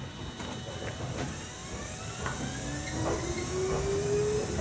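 Electric commuter train pulling away, heard from inside the car: its motors give a whine that rises in pitch from about halfway through as it gathers speed, over a low running rumble with a few sharp knocks.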